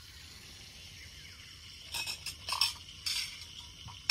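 Food sizzling in a frying pan on a portable camp stove, with a steady hiss, and a metal utensil clinking and scraping against the pan several times about halfway through, then one sharp click at the end.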